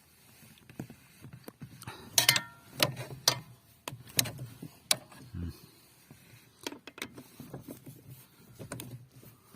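Irregular metallic clicks and clinks of a ratchet wrench and 13 mm socket being worked on the bolt of a Lada Granta's lower steering-shaft universal joint, one clink about two seconds in ringing briefly. The bolt is being tightened to cure a knock in the steering from the loose joint between the universal joint and the shaft.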